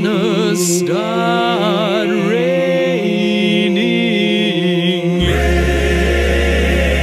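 Male voices singing close harmony on long held chords with vibrato, the upper line gliding between notes, no words heard. About five seconds in, a deep steady bass note comes in beneath the chord and the sound fills out.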